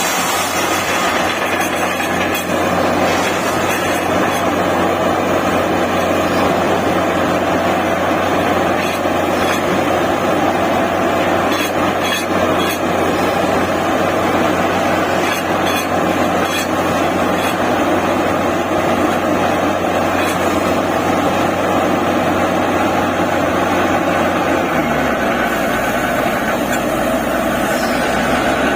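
Borewell drilling rig running steadily under load, a loud continuous mechanical drone with a few sharp clicks mixed in. The low drone shifts pitch a few seconds before the end.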